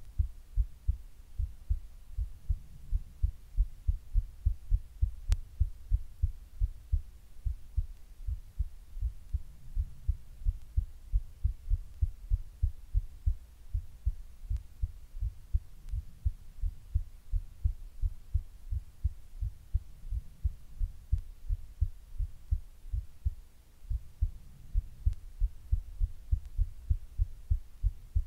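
Heartbeat pulsing in the neck at the carotid artery, picked up by a microphone held close: steady, regular low thumps, about two a second.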